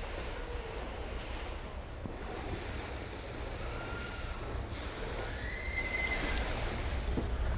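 Small passenger ferry coming in to the pier: water washing and wind noise over a low rumble. A few short high-pitched tones sound between about four and six and a half seconds in.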